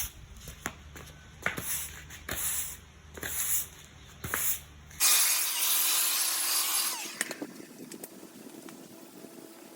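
Hand-tool work in sandy lawn soil: a series of short scrapes and knocks, then after a sudden change a steady hiss lasting about two seconds, like sand being spread or brushed.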